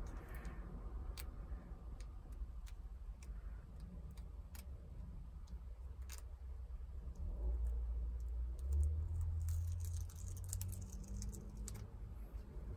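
Faint light ticks and clicks of fingers picking a vinyl decal off its backing sheet, coming fairly evenly about every half second or so, over a low rumble that swells about two-thirds of the way through.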